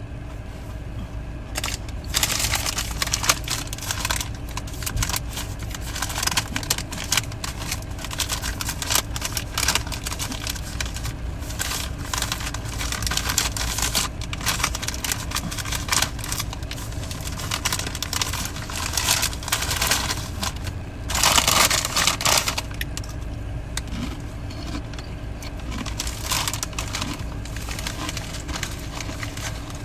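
Close-miked chewing of bubble gum: a continuous run of irregular wet smacks, clicks and crackles. About two-thirds of the way through comes a longer, louder rustling burst.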